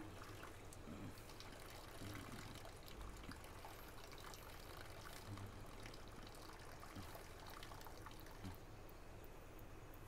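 Faint steady trickle of a man urinating into a toilet bowl.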